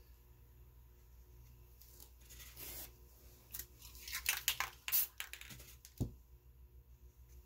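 Paper stencil pieces being peeled off a spray-painted board and handled, giving a cluster of crinkling, tearing sounds in the middle. There is a single thump about six seconds in.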